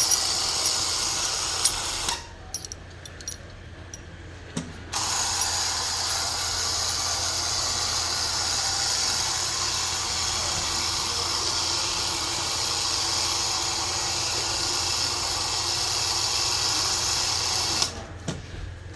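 Electric hoist motor running in two spells, lifting a hot-washed part out of the washing cabinet: a short run of about two seconds, a pause of about three seconds, then a steady run of about thirteen seconds that cuts off sharply.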